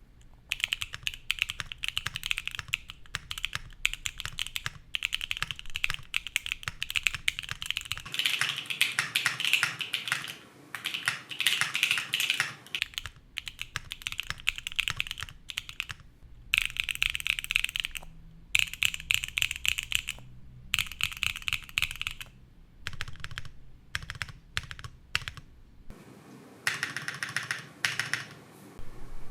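Mechanical keyboard being typed on in quick runs with short pauses: Akko V3 Yellow Pro linear switches on a carbon fibre plate with no foam and PBT keycaps, a bright, clacky, hard-plastic sound. A faint low rumble from the microphone runs underneath.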